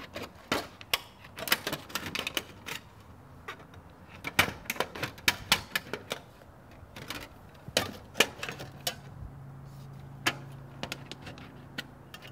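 Tin snips cutting aluminum step flashing: a series of sharp, irregular metal clicks and snips as the blades close on the sheet, with short pauses between cuts.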